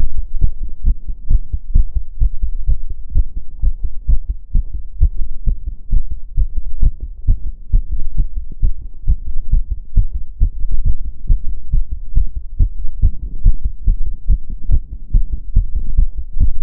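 A woman's heart beating fast, raised by step-up exercise: a quick, steady run of low heartbeat strokes.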